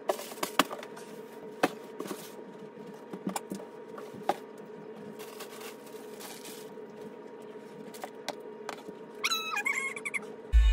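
Cardboard boxes being handled and set down: scattered knocks and thuds over a steady faint hum. A brief wavering high squeak comes near the end.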